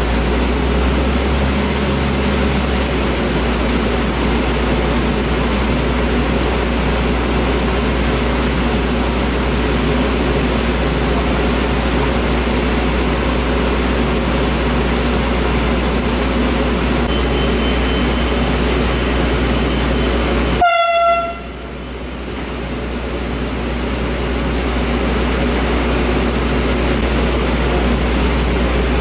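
Steady low drone of a diesel passenger train standing at the platform with its engine running, with a faint high whine over it. About 21 seconds in comes a short horn toot, after which the sound drops away and slowly swells back.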